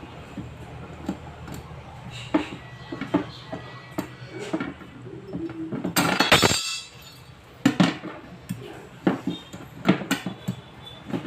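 Metal tools and parts clinking and knocking during a washing machine repair, with irregular sharp taps and a loud noisy burst lasting under a second about six seconds in.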